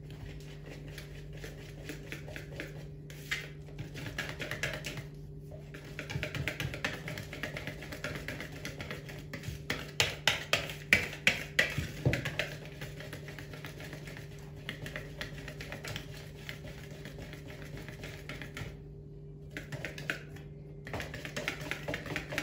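Hand wire whisk beating cake batter in a plastic bowl: rapid clicking and scraping of the wires against the bowl, loudest about ten to twelve seconds in, with a few short breaks.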